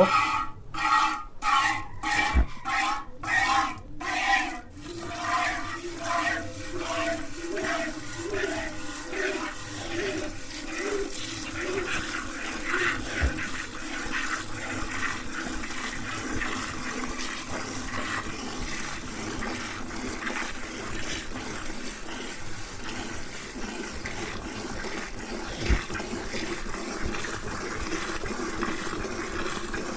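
Cow being hand-milked with both hands, milk squirting into a pail in even alternating strokes, about two a second. The ringing pitch of each squirt falls over the first ten seconds as the pail fills, then the strokes blend into a steady frothy hiss as the streams hit foam.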